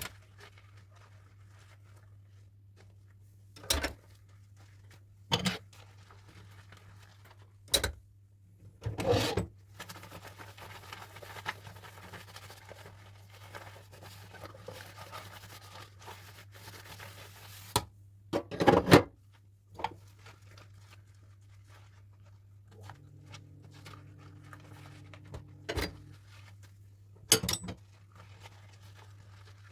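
Dishes and utensils clinking and knocking in a kitchen sink as they are washed, with a cluster of louder clatters about two thirds of the way in. Water runs faintly for several seconds in the middle and cuts off suddenly, over a low steady hum.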